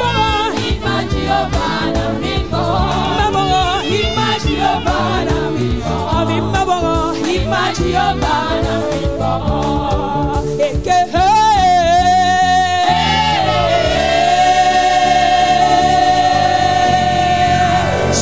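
Gospel music: voices singing over instrumental backing. About eleven seconds in, a lead voice wavers and then holds one long note almost to the end.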